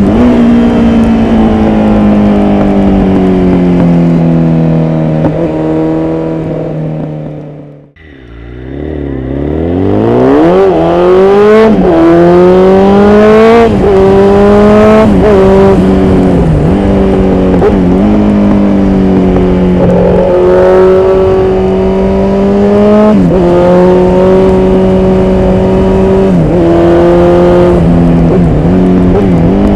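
Honda CBR954RR Fireblade's inline-four engine running through a Dominator aftermarket exhaust silencer while ridden. It runs steadily, dies away to near nothing about eight seconds in, then builds back up and accelerates through several upshifts, the pitch rising and dropping at each shift. After that it cruises at a steady pitch with a few brief dips.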